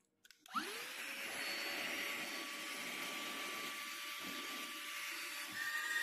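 Cordless handheld vacuum cleaner switched on with a click. Its motor spins up in a quick rising whine, then runs steadily with a rush of air.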